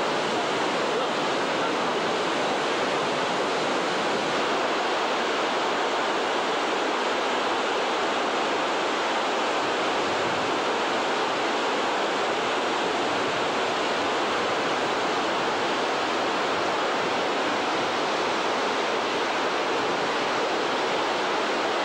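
Steady rushing of a large waterfall's cascading water, heard close by.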